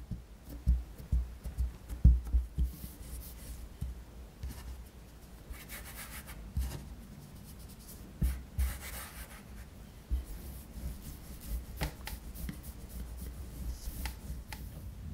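Cookie dough being worked by hand on a silicone baking mat. A run of dull thumps comes first as the dough is pressed and patted flat. Soft rubbing follows as powder is dusted and smoothed over it, and near the end a rolling pin rolls over the dough.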